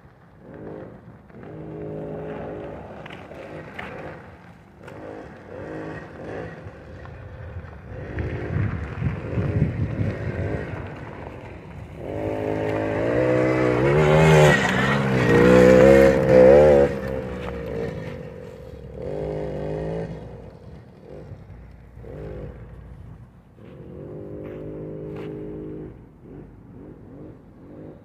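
Suzuki LT50 quad's small 49 cc two-stroke engine revving up and easing off as it is ridden over dirt, its pitch rising and falling. It is loudest about 12 to 17 seconds in, as the quad comes close.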